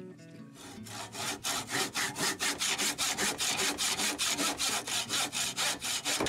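Handsaw cutting through a wooden board with fast, even strokes, about five a second, starting about half a second in.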